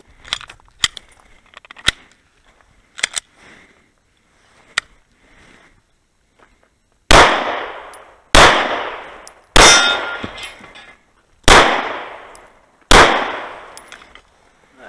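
Five semi-automatic pistol shots fired about one to two seconds apart, each ringing off for about a second. They follow a few seconds of light clicks and taps.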